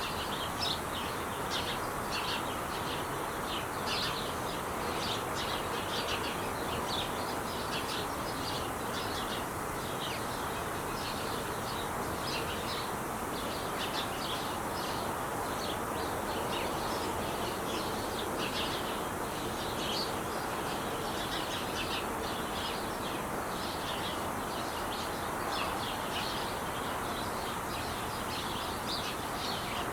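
Steady rush of freeway traffic, with small birds chirping over it in many short, quick calls.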